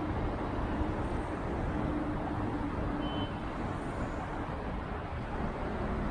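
City street traffic: a steady rumble of passing cars and other vehicles, with one engine's hum fading out about three seconds in.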